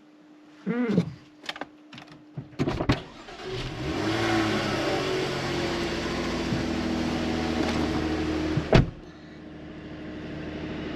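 2017 Jaguar F-Type's supercharged V6 cold-starting: a few clicks, then the engine catches about two and a half seconds in and runs loud at raised revs. About nine seconds in it drops sharply, with a clunk, to a much quieter steady idle.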